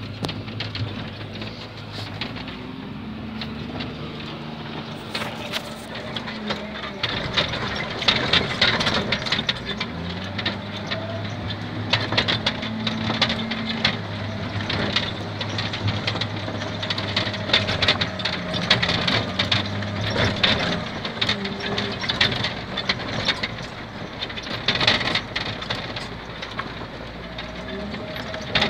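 Wheel loader's diesel engine running, heard from inside the cab as the machine drives, its pitch rising and falling a little, with frequent rattles and knocks from about a quarter of the way in.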